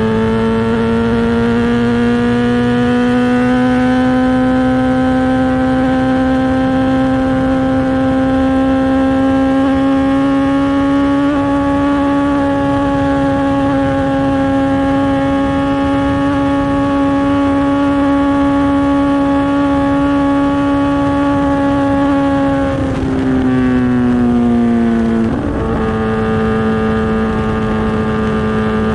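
Kawasaki ZX-10R inline-four engine held at high revs through an SC Project aftermarket exhaust. The pitch climbs slowly over the first dozen seconds and then holds steady. About 23 seconds in the revs sag for a couple of seconds, then settle slightly lower.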